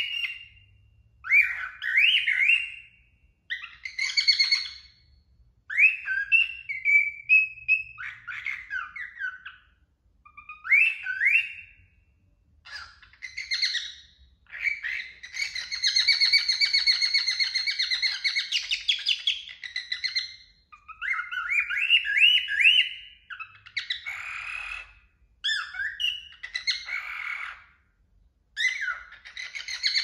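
Male cockatiel singing: a series of short rising whistled phrases with brief pauses between them, and a longer unbroken warbling stretch of about five seconds near the middle.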